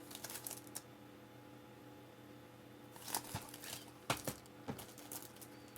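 Faint handling noise of plastic Blu-ray cases: a few light clicks and rustles, mostly near the start and from about three seconds on.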